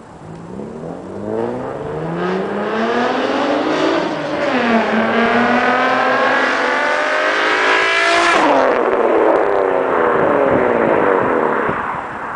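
2001 Nissan Maxima's V6 exhaust as the car accelerates hard past: the engine note climbs, dips at a gear change about four seconds in, and climbs again. About eight seconds in the pitch drops sharply and the sound falls away as the car goes by.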